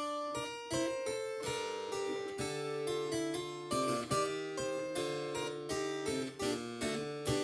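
Solo harpsichord playing a contrapuntal keyboard piece in several voices, with plucked notes held against one another and a lower bass line entering about two and a half seconds in.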